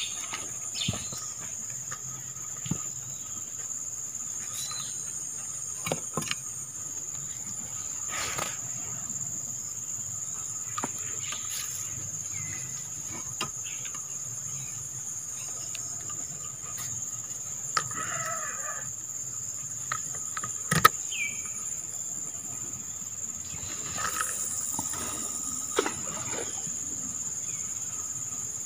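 Steady, high-pitched drone of an insect chorus. Scattered sharp clicks and knocks sound over it, the loudest about 21 seconds in.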